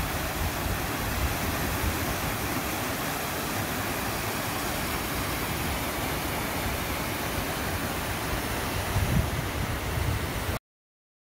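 Steady outdoor rushing noise with an uneven low rumble, cutting off abruptly near the end.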